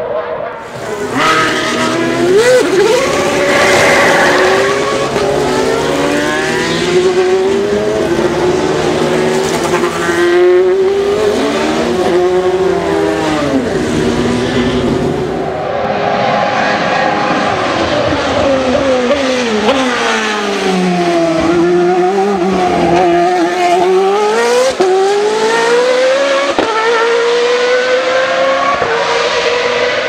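GP2 race cars' 4-litre V8 engines at speed, several engine notes overlapping, pitch climbing through upshifts and falling on downshifts and lifts. About two-thirds of the way in, one note sweeps down low and then climbs steadily again as a car brakes and accelerates away.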